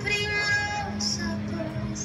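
Music with a sung vocal: the voice slides up into a held note at the start, then carries on over a steady backing.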